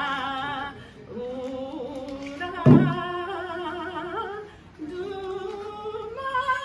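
Women singing an Okinawan usudeku folk song, a slow melody held long with a wavering pitch. One loud beat on a small hand-held drum a little under halfway through.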